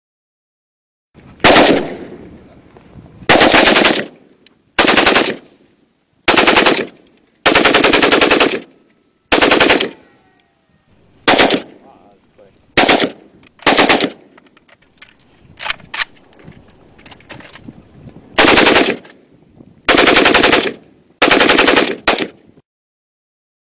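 AK-47 assault rifle firing on full auto in about a dozen short bursts of rapid shots, each under a second long, with a couple of single shots near the middle. The first burst rings out with a trailing echo.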